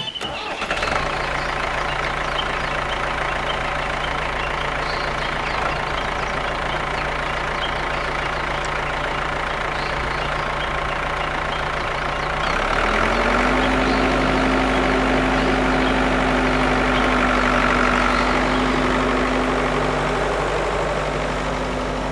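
Tractor engine running steadily; about halfway through its note shifts and it gets a little louder.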